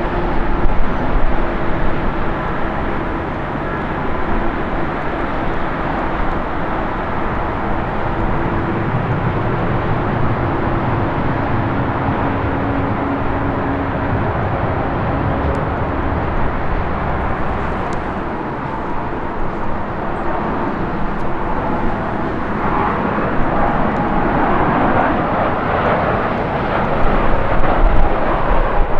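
Jet airliner at takeoff power rolling and climbing away: a steady rushing engine noise with faint steady tones underneath, which becomes brighter about two-thirds of the way in.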